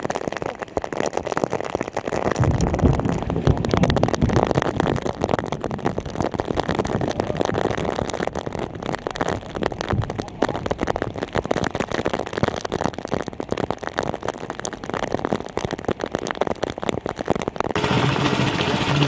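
Dense, irregular crackling and spattering noise. About a second before the end it gives way abruptly to a small water-pump engine running steadily.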